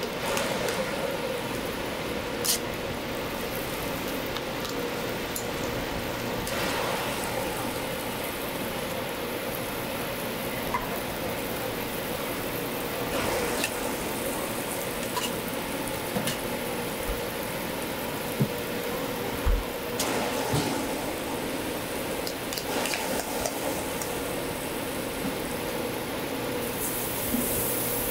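Cabbage-and-egg toast patties sizzling steadily in oil on a flat-top griddle while more batter is poured from a steel pitcher, with a few sharp clicks of tongs on the griddle.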